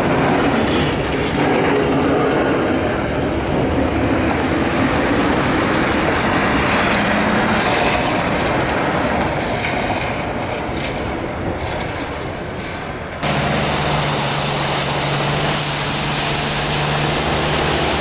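Street vehicle noise: a continuous rumble and hiss that eases slightly, then an abrupt cut about thirteen seconds in to a different vehicle sound with a steady low hum and strong hiss.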